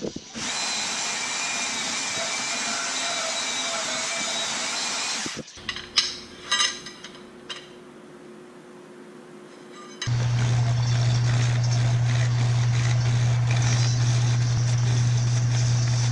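A portable band saw cutting steel tubing runs steadily for about five seconds and stops. Then come a few sharp clinks of metal tubes being handled. From about ten seconds in, a metal lathe runs steadily with a strong low hum.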